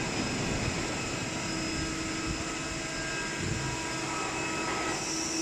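Industrial rotary screw air compressor running: a steady drone of motor hum and whine, with several high steady tones above it, growing a little louder near the end.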